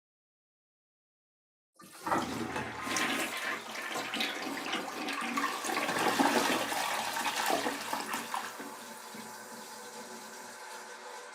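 Toilet flushing. After nearly two seconds of silence the flush starts suddenly with a loud rush of water that peaks around six seconds in. From about eight and a half seconds it eases into a quieter, steady run of water.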